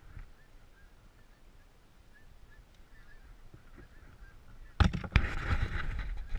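Faint, regularly repeated short animal calls in the background, then about five seconds in two sharp knocks and loud rustling handling noise as the freshly caught largemouth bass is taken in hand and lifted.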